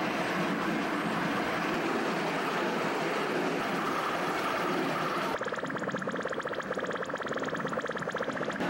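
Electronic noise from an analog audio/video synthesizer installation: a dense, steady, noisy drone that changes abruptly about five seconds in to a rapid pulsing buzz with a pitched tone.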